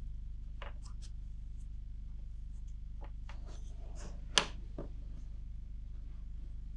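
A brush dabbing and scraping paste onto small wooden handle spacers, with light scattered clicks and taps of the spacers on a wooden board and one sharper click about four and a half seconds in, over a low steady hum.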